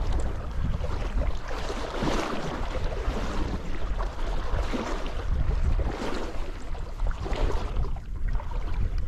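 Running stream water with wind buffeting the microphone, a heavy uneven low rumble under a rushing hiss that rises and falls.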